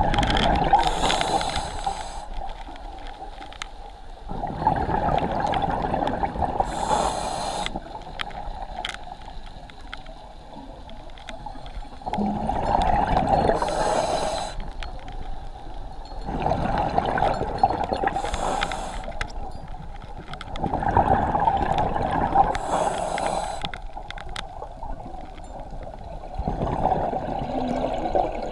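Diver breathing through a scuba regulator underwater: six long stretches of bubbling exhalation, a few seconds apart, with short hisses of air drawn through the regulator among them.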